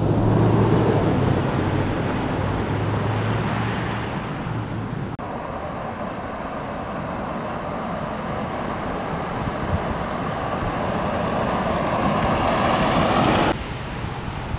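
A pickup truck driving along a residential street: engine hum and tyre noise, then, after an edit, the noise slowly building as the truck approaches. It cuts off suddenly near the end.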